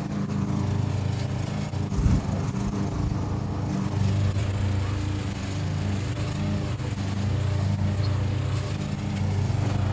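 Small engine running steadily, its pitch and level shifting a little at times, with a short thump about two seconds in.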